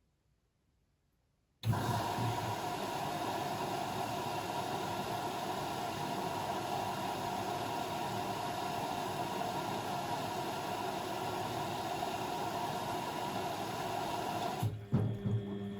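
Blomberg WAF 7442 SL washing machine taking in water: the inlet valve opens suddenly about a second and a half in and water rushes in with a steady hiss. Near the end the hiss stops and a lower machine hum takes over.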